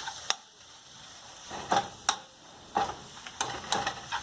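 A utensil scraping and knocking against a pan in about seven sharp strokes as a thick spice masala with roasted chickpea flour is stirred in oil, over a faint steady sizzle.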